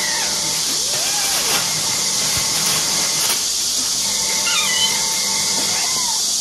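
Kittens giving a few faint high mews while they play-fight, over a steady high hiss.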